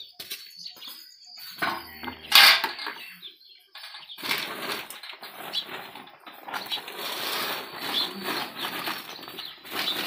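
Cattle feed pouring from a plastic sack into a bucket of water: a continuous rushing, crackling noise through the last six seconds. A single loud clunk comes about two and a half seconds in.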